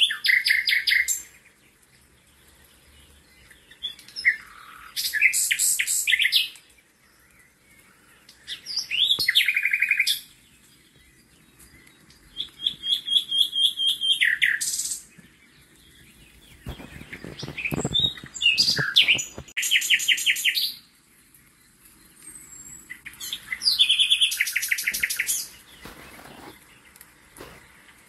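A songbird singing short, varied phrases of high whistles and fast trills, one phrase about every four to five seconds with pauses between them.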